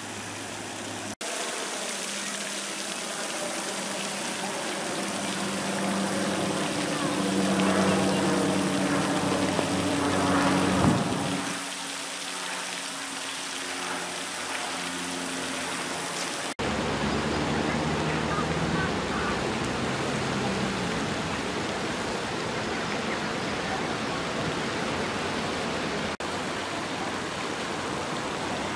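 Steady splashing hiss of a pond fountain's jets falling back onto the water, with a few abrupt breaks. A low hum swells through the middle and fades out about eleven seconds in.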